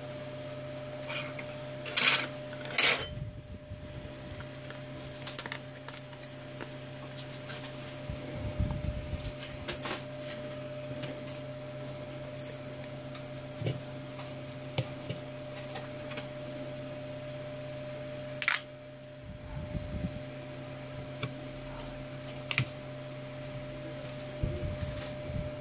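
Small plastic and metal clicks and taps from a smartphone's frame, display and tweezers being handled during disassembly, with two sharper clicks about two seconds in and another past halfway, over a steady low hum.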